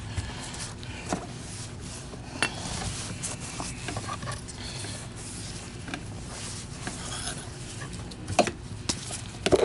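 A cloth rubbing and wiping over the plastic canister and gasket of a Filter Queen Majestic vacuum, with a few sharp clicks and knocks of the plastic parts being handled, the loudest near the end.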